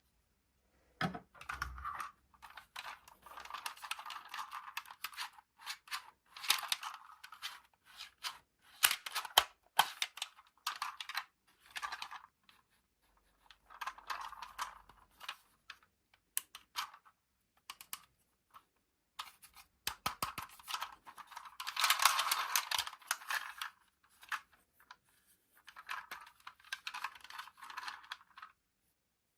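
Toy packaging being handled and opened by hand: bursts of crinkling, crackling plastic and cardboard with many sharp clicks, separated by short pauses.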